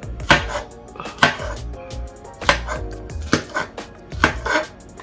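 Kitchen knife chopping green bell peppers: sharp knocks of the blade against the board or counter, about one a second and irregular, some in quick pairs.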